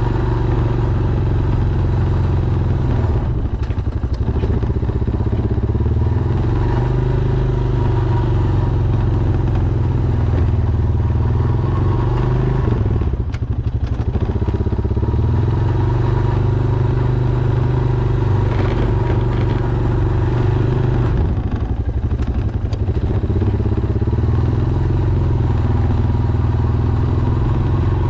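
Honda Foreman ATV's single-cylinder four-stroke engine running steadily while plowing snow, easing off briefly twice, about halfway and about three-quarters through.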